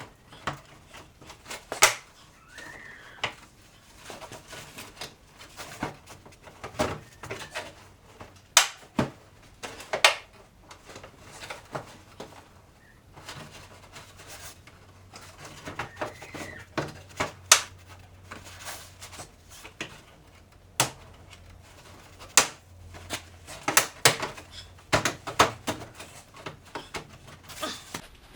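Irregular sharp clicks and knocks of plastic and metal parts being worked into place while the CVT belt housing of an ATV is reassembled, with a faint steady hum underneath.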